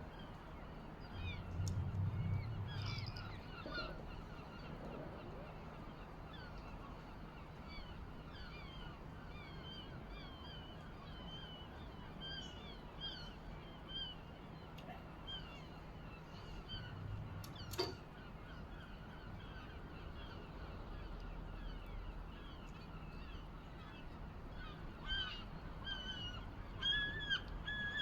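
Birds calling with repeated short squawks, turning into a rapid run of calls near the end, over a steady background hiss. A low thud comes about two seconds in, and a sharp click about two-thirds of the way through.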